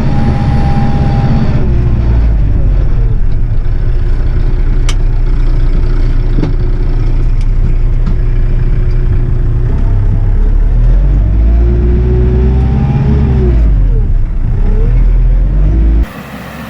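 Kioti RX7320 tractor's diesel engine working hard, its pitch rising and falling as it revs under load while pushing a felled tree. Near the end it cuts off sharply to a quieter steady hum.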